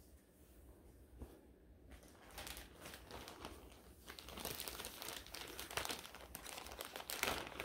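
Packaging crinkling and rustling as it is handled. It starts about two seconds in and gets louder about halfway through.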